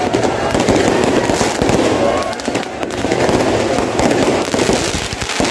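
Aerial fireworks display bursting overhead, a dense, continuous run of bangs and crackles.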